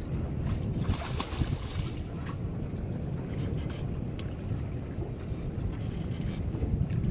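Wind buffeting the microphone over choppy sea water lapping at a small boat, a steady low rumble, with a few short sharp sounds between one and two seconds in.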